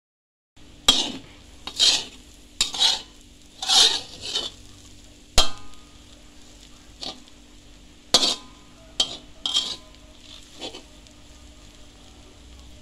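A metal spatula scraping and stirring dry shredded fish floss around an aluminium wok, in about ten uneven strokes, with one sharp clink against the pan about five seconds in.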